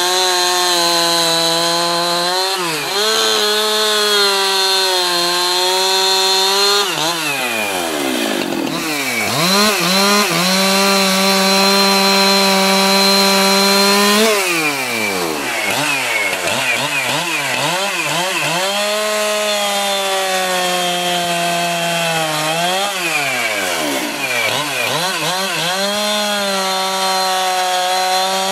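Jonsered 2071 Turbo 71cc two-stroke chainsaw cutting through logs at full throttle, its high engine note sagging a little under load in each cut. Several times between cuts the throttle comes off, the revs drop, and then it is revved back up into the next cut. It is running strongly and cutting fast.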